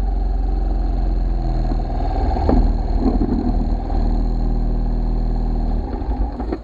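Scooter engine idling steadily, close up, with a short stretch of rattly clatter about two and a half to three and a half seconds in; the engine sound drops away suddenly at the very end.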